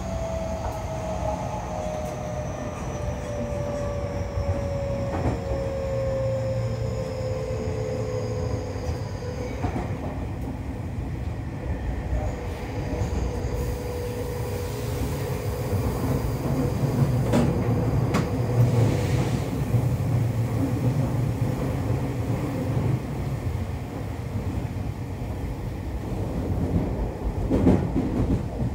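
Seibu 30000 series train heard from inside the car: the whine of its Hitachi IGBT-VVVF inverter and traction motors falls steadily in pitch as the train slows, then holds at one pitch. Under it runs a steady rumble of wheels on rail, with a few knocks.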